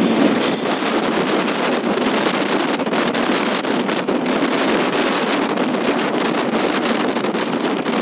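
Strong wind buffeting the microphone: a loud, steady rush of noise broken by irregular gusts.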